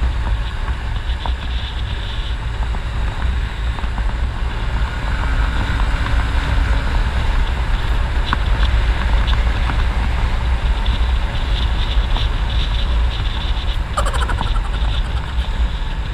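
Motorbike riding along, its engine and road noise under heavy wind rumble on the microphone.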